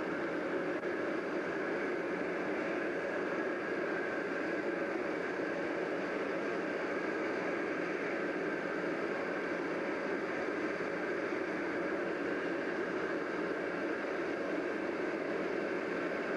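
Steady, even machinery noise from a docked cross-channel hovercraft, with a faint high whine held on one note.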